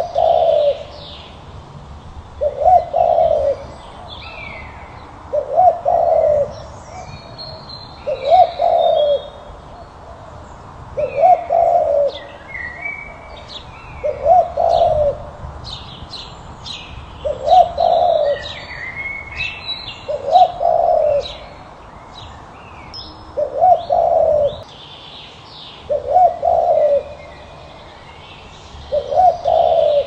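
Spotted dove cooing: a short phrase of a few low coos, repeated about every three seconds. Small birds chirp and twitter higher up in the background.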